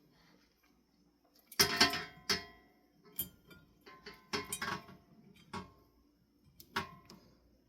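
Metal ceiling-fan parts being handled and knocked together: a cluster of sharp clanks about a second and a half in, then scattered clicks and knocks, some ringing briefly.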